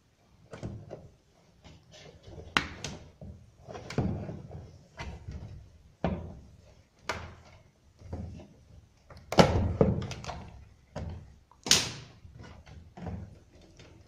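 Irregular clicks and knocks of hands and a hand tool working on wires and a timer switch in a twin-tub washing machine's plastic control panel, with two louder knocks in the second half.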